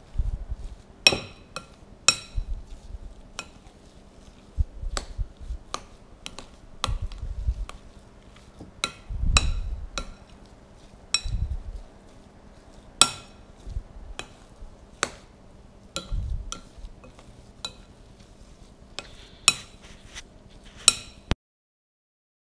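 A metal spoon stirring mashed potatoes in a glass mixing bowl: irregular clinks of the spoon against the glass, about one a second, with softer, duller sounds of the mash being worked between them. The sound cuts off abruptly near the end.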